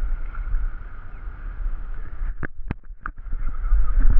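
Wind rumbling on the microphone, with a few sharp clicks a little past halfway.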